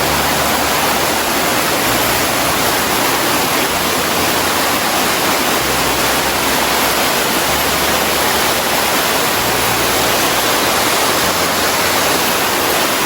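Loud, steady rush of water cascading over rocks from a small waterfall and stream close by, with a low rumble that comes and goes underneath.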